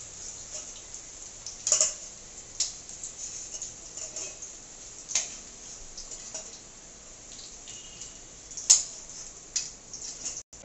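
Boiled potatoes frying in hot oil: a steady sizzle with a handful of sharp pops and clicks scattered through it. The potatoes are browned and about ready to come out.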